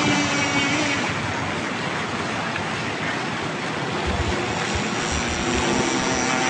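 Small engine of a radio-controlled model boat running at a steady high buzz over the hiss of water. The note fades into the water noise after about a second and comes back near the end.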